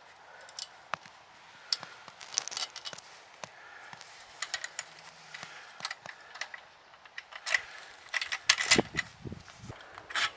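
Irregular metallic clinks and clicks of hand tools and trampoline hardware being handled, with a busier, louder run of clatter near the end.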